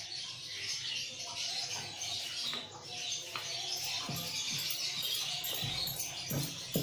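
Wooden rolling pin rolling out paratha dough on a wooden board, giving soft repeated knocks and rubbing from about four seconds in, over a steady hiss.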